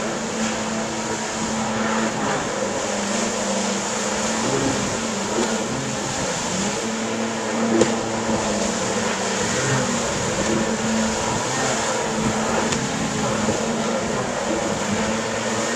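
Jet ski engines running on the water, their note wavering up and down, with a brief sharp click about eight seconds in.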